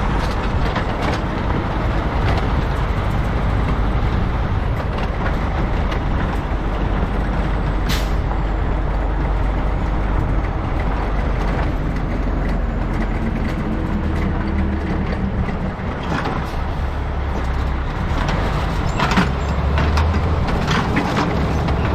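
Heavy diesel vehicle running, a steady low rumble with a few light knocks and rattles.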